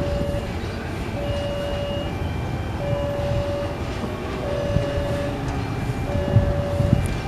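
Level-crossing warning alarm sounding a repeating tone, on for about a second and off for about half a second, over the low rumble of a train and of motorcycle engines crossing the tracks. A couple of louder knocks come near the end.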